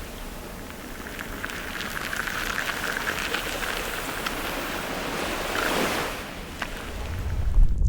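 Ocean surf: a steady rush of waves washing on a shore, with a few small clicks scattered through it. A deep low rumble builds near the end.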